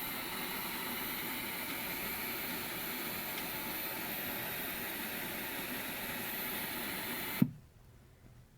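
Steady electrical hiss with a faint high-pitched whine. It cuts off abruptly with a click about seven and a half seconds in.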